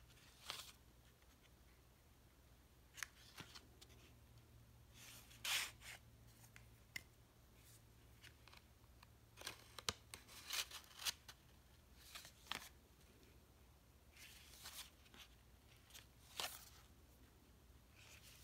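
Faint rustling and sliding of paper and card: printed tags pulled from and pushed back into pockets made of flattened cardboard toilet-paper rolls covered in scrapbook paper, in short scattered brushes with a sharp little tap about ten seconds in.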